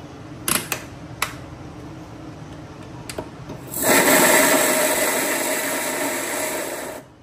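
An electric mixer grinder runs for about three seconds, grinding chutney ingredients, and cuts off abruptly. A few sharp clicks and knocks of the jar and lid come before it starts.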